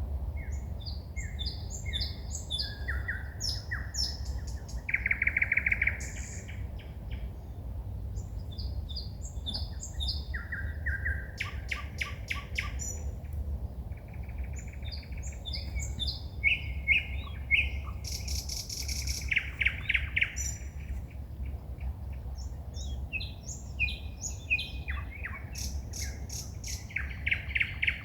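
A songbird singing at night in a long, varied song of short repeated notes, whistles and buzzy rattles, phrase after phrase with brief pauses, over a steady low background rumble.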